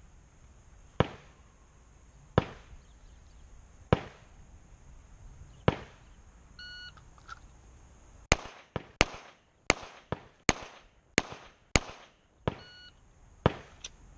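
Pistol shots on an outdoor range: single shots about a second and a half apart, then a shot-timer beep about halfway in, followed by a quicker string of about seven shots and a second timer beep near the end, with two more shots after it.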